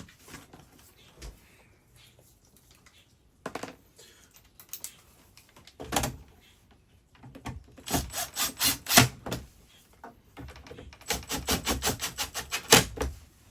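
Bolts being fastened in to mount an RV power converter: a few knocks and handling noises, then two runs of quick, evenly spaced clicks from the fastening tool, several a second.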